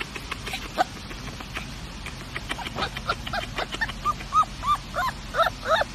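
Puppy giving a run of short, high yips, about two to three a second, starting about four seconds in, over a faint quick ticking.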